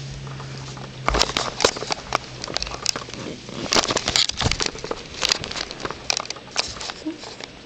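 Irregular clicks and taps starting about a second in, in quick uneven clusters: a six-week-old mini Goldendoodle puppy's paws and claws scrabbling on the hardwood floor and blanket.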